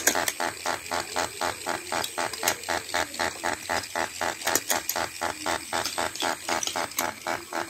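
Battery-powered toy fishing game running, its motor and plastic gears turning the board of fish with a fast, regular rasping pulse about four or five times a second. A few sharp clicks sound on top.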